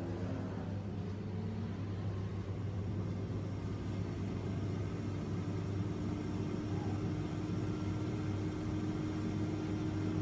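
Philips HD9255/90 air fryer running: its fan motor gives a steady hum over an even rush of air, with a faint steady tone joining about four seconds in.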